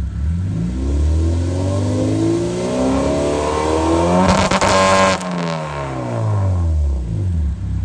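2006 Acura RSX Type-S four-cylinder with a catless Skunk2 Alpha header and K-Tuned 3-inch exhaust revving in place. The pitch climbs steadily for about four seconds, holds at the rev limiter with rapid crackling for nearly a second, then falls back to idle.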